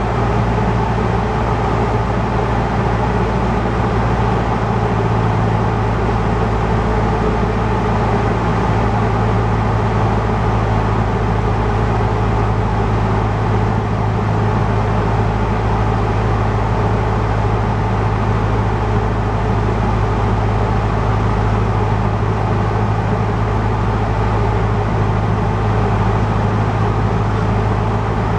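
Cessna 150's Continental O-200 four-cylinder engine and propeller running steadily in flight during the approach to land, heard inside the cabin as a loud, even drone.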